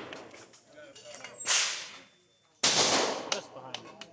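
Two loud gunshots about a second apart, the second sharper, each dying away over about half a second.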